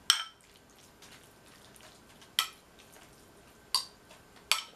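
A metal spoon clinking against a glass jar while meat is scooped out of it: four sharp, ringing clinks, unevenly spaced, with little between them.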